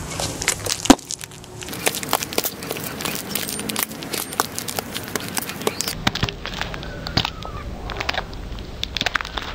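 Chunky-heeled platform ankle booties clicking and scuffing on asphalt in irregular steps, the sharpest click about a second in, with a low wind rumble on the microphone.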